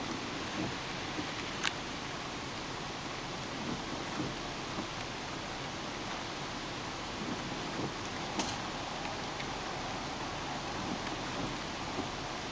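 Steady hiss of falling rain, with two sharp clicks, one about two seconds in and one past the middle.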